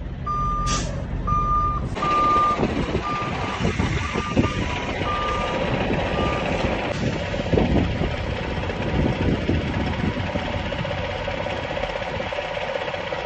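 Semi-truck tractor's reversing alarm beeping at an even pace, about three beeps every two seconds, growing fainter and stopping about six seconds in. Underneath runs the steady low rumble of idling semi-truck engines, which continues alone afterwards.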